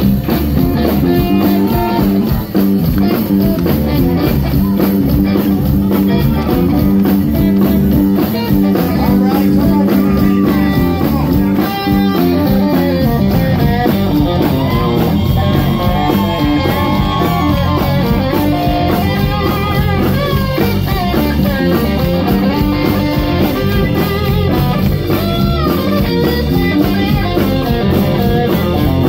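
Live blues-rock band playing, with a Stratocaster-style electric guitar taking an instrumental solo of bending, sliding notes over bass and drums.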